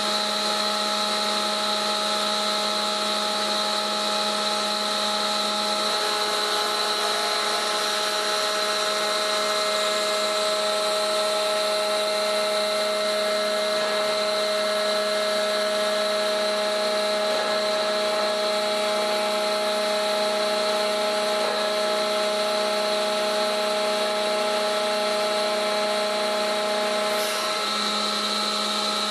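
A machine running steadily with a constant, multi-toned whine over a hiss, shifting slightly about six seconds in and dipping briefly near the end.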